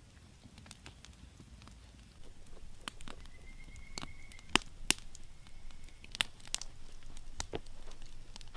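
Campfire crackling, with irregular sharp pops that come thicker about two seconds in; the two loudest pops fall about half a second apart in the middle. A faint high thin whistle sounds twice, each for about a second.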